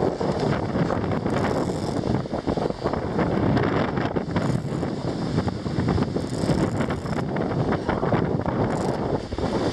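Wind buffeting the microphone over the rushing of water along the hull of a Pacific proa sailing at about 10 knots in a force 5 wind, with a few brief hissing bursts of spray as the bow hits the waves.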